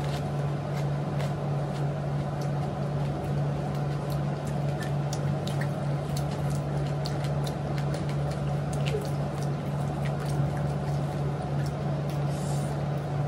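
Small clicks, crunches and liquid squishes of panipuri shells being cracked, filled with pani and eaten, over a steady low hum.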